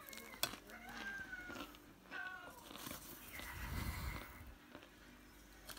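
Biting and chewing hard, crunchy chunks of compressed cornstarch close to the microphone, with a sharp click about half a second in.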